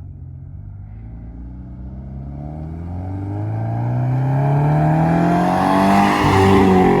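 Car engine accelerating, its pitch climbing steadily and the sound growing louder as it nears, peaking near the end.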